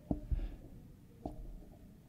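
A few soft low thumps: two close together at the start and one a little after a second in, over faint low background noise.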